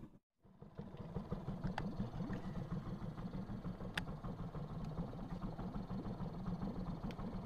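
Small boat engine running steadily at low revs, with a low, even pulsing hum, after a brief dropout at the very start. A single sharp click comes about four seconds in.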